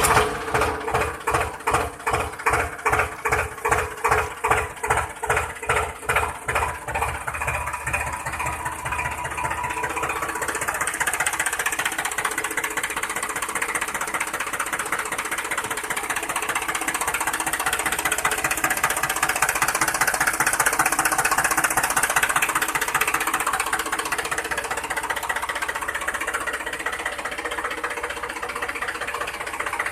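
A tractor-style engine chugging: slow, even thumps that speed up over the first several seconds and settle into a steady run.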